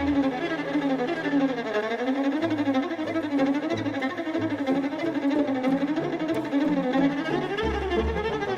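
Background music: a fiddle melody over a plucked or bowed bass line.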